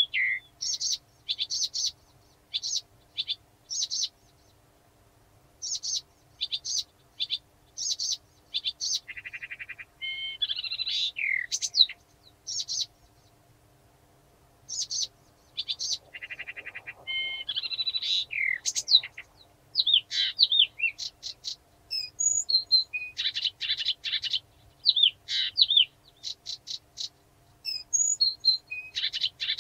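Blyth's reed warbler singing: short phrases, each note repeated several times before it moves to the next, mixed with buzzy rattles, with a brief pause about halfway through.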